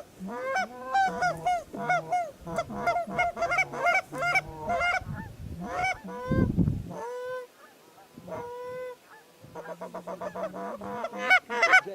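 Geese honking: a dense run of rapid, overlapping honks from an approaching flock, with a few longer held calls partway through. A brief low rumble cuts in about halfway.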